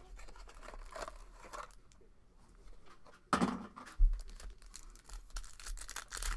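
Foil trading-card pack wrapper being handled and torn open, crinkling and crackling, with a thump a little over three seconds in.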